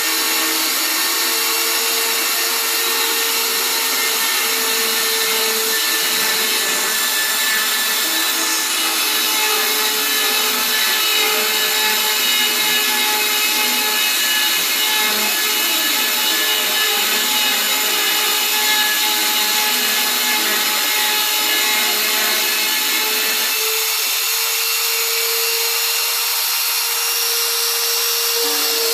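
CNC engraving router cutting a toolpath: a steady spindle whine over the noise of the cutter working the material. About three-quarters of the way through, the lower part of the sound drops away while the whine carries on.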